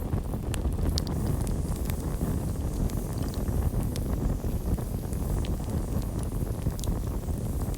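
Campfire burning: a steady low rumble with scattered sharp crackles and pops.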